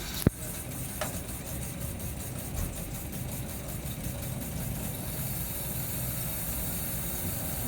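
Yair air conditioner running its defrost cycle: a steady mechanical hum, with a sharp click just after the start and a softer click about a second in. A hiss builds up from about five seconds in.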